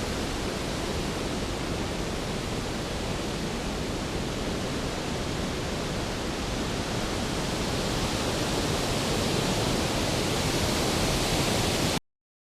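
Storm sound effect: a steady rushing noise with no thunder claps, swelling a little in the last few seconds and then cutting off abruptly.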